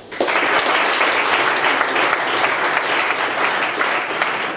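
Audience applauding, breaking out just after the start and holding steady.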